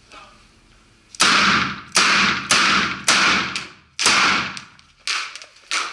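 Ruger GP100 revolver fired seven times in about five seconds, the shots coming roughly half a second to a second apart, each one ringing on in the reverberant indoor range.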